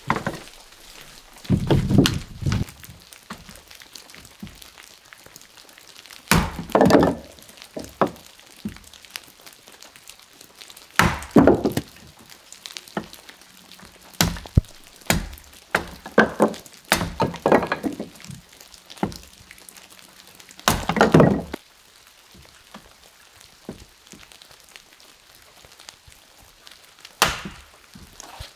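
Heavy wooden thuds and knocks, several clusters a few seconds apart, with a run of quicker sharp knocks in the middle.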